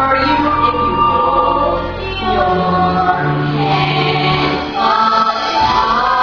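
Several voices singing together in a stage-musical song, with long held notes over an instrumental backing.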